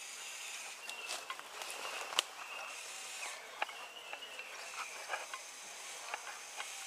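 Quiet woodland ambience with scattered small clicks and crackles, as of leaf litter and winch line being handled, over a faint high hiss and a faint high thin tone.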